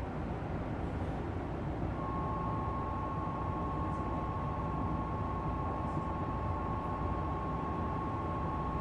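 Stationary electric train's cabin hum, with a steady electronic tone of two close pitches starting about two seconds in and lasting about seven seconds: the departure signal before the doors close.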